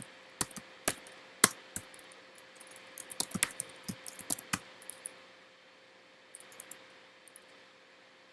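Typing on a computer keyboard: a quick, uneven run of key clicks for about five seconds, then a few fainter taps near the end.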